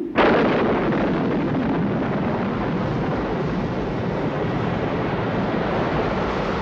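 Sound effect of wind and surf: a rushing roar that cuts in suddenly and then holds steady.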